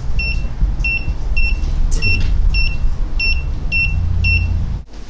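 Handheld infrared thermometer beeping in short high chirps, about two a second, while it takes temperature readings; the beeps stop near the end. A steady low rumble runs underneath and is the loudest sound.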